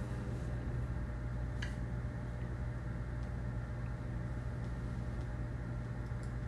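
Steady low mechanical hum with a faint hiss over it, such as room ventilation makes; a single faint click about a second and a half in.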